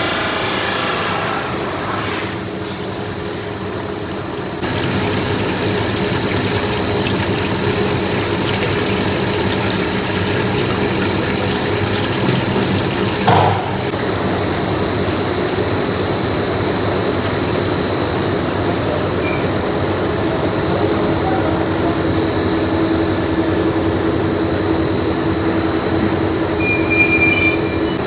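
Factory machinery running steadily, with a steady high whine from about five seconds in and a single sharp knock about halfway through.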